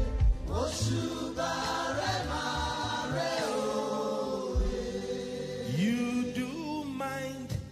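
Live gospel worship music: a choir singing slow, held notes over a low instrumental accompaniment.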